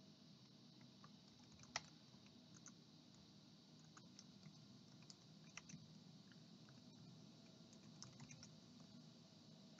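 Faint, irregular keystrokes on a computer keyboard as a comment is typed in.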